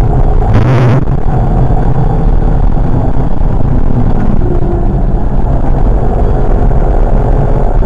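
In-cabin sound of a Volkswagen Golf 5's 1.4 TSI turbocharged four-cylinder petrol engine pulling at speed, with tyre and road noise. A brief rush of hissing noise comes about half a second in.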